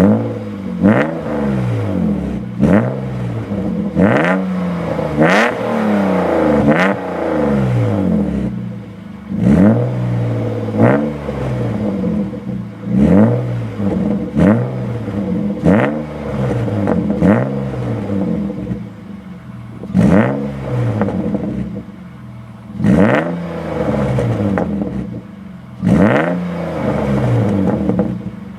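BMW 323ti's straight-six engine, fitted with G-Power tuning parts, revved in repeated quick throttle blips. Each rev rises sharply in pitch and falls back toward idle, about one to two seconds apart, with a few longer revs.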